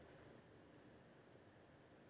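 Near silence: faint room hiss.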